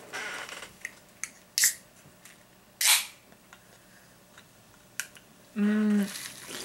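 A few sharp clicks, then the tab of an aluminium Mountain Dew can cracking open with a short fizzing hiss. Near the end comes a brief hummed voice sound as the can is drunk from.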